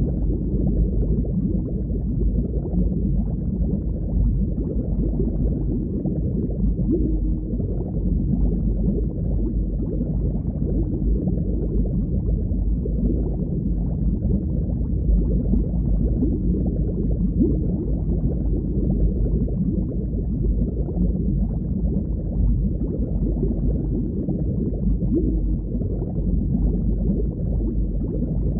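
Underwater ambience: a steady, muffled low rush of water, with all of its sound below about 1 kHz and no distinct events.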